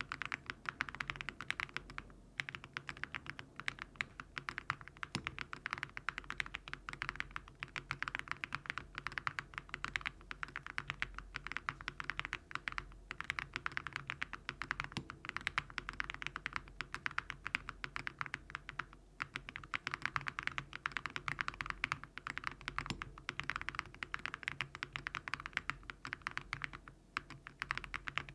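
Typing on a foam-dampened Crush80 mechanical keyboard with HMX Frosted Jade switches and Awekeys Viking metal keycaps: a fast, steady run of keystrokes with a few short pauses.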